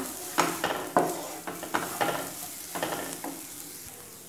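Wooden spatula stirring and scraping onion and spice masala around a nonstick kadai, about six strokes over the first three seconds, over the steady sizzle of the masala frying in oil. The strokes stop near the end and only a fainter sizzle is left.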